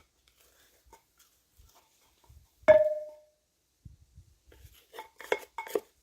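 A ceramic plant pot knocked once, ringing briefly, then a quick run of lighter knocks and clinks near the end.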